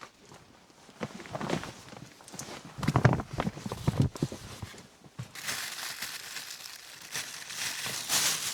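Crinkling and rustling handling noises with several short knocks, loudest about three seconds in, then a steady hiss from about five seconds in.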